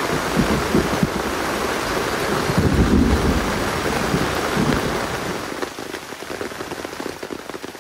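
Heavy rain falling steadily, with low rumbles in the first half. The rain eases to a lighter patter about six seconds in.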